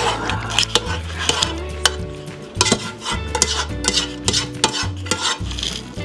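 A spatula scraping and knocking repeatedly against the inside of a cooking pot while thick, cheese-coated pasta is scooped out into a glass casserole dish.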